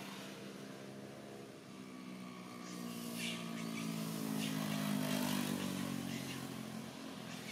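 A motor vehicle's engine running steadily, growing louder to a peak about five seconds in and then easing off, as if it passes by. A few short high chirps come about three seconds in.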